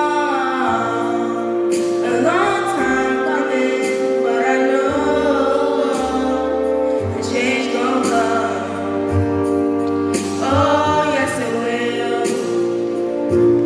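A song with singing over held chords and a bass line that changes note every second or two.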